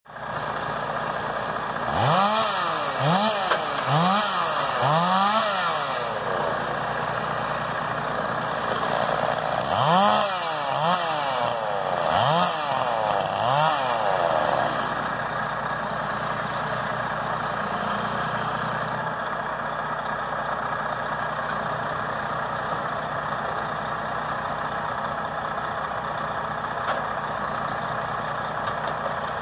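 A chainsaw revved in two runs of about four quick rising-and-falling bursts each while cutting logs, over a diesel truck engine idling steadily. The chainsaw stops about halfway through, leaving the engine idling alone.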